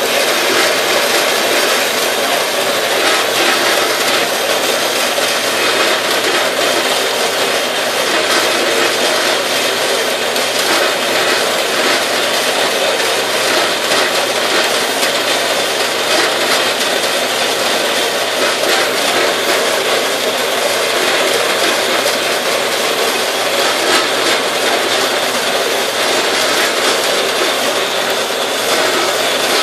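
Harbor Freight 4x6 metal-cutting bandsaw running steadily, its blade sawing through a flat steel bar in the vise.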